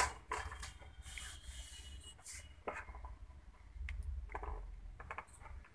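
A small cardboard medicine box handled and turned over by hand: faint rubbing and rustling with a few light taps.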